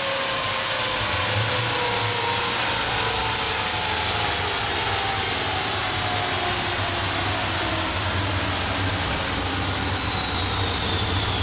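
A high-pitched mechanical whine that slides slowly down in pitch throughout, over a steady rushing noise and a low hum, like fast-spinning machinery winding down.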